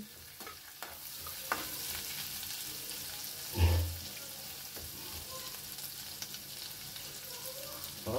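Cumin seeds, asafoetida and ginger-garlic paste sizzling in hot oil in an aluminium kadhai, stirred with a metal slotted spatula that clicks and scrapes against the pan. One louder dull knock comes a little past three and a half seconds in.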